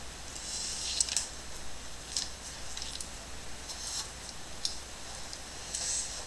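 Light handling sounds of electrical wires and small brass bullet connectors being picked up and worked by hand: a handful of short, sharp clicks and rustles over a steady low hum.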